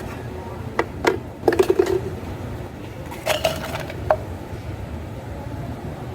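Cafe counter work sounds over a steady low hum: a couple of knocks, a quick rattle of taps, then two short ringing clinks of glassware or utensils.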